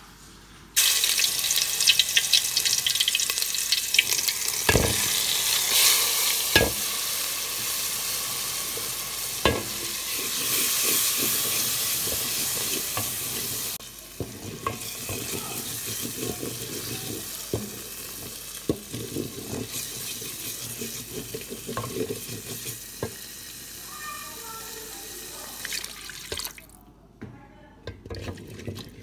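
Spice paste frying in hot oil in a pan, sizzling loudly, stirred with a wooden spatula that knocks against the pan a few times. About halfway through the sizzle drops suddenly to a quieter frying sound with steady spatula scraping and stirring.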